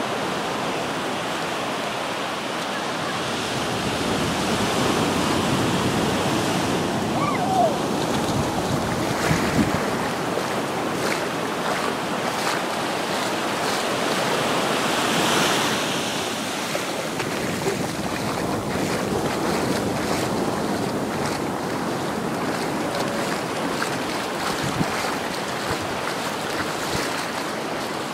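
Gentle surf washing up and back over a sandy beach, with wind buffeting the microphone.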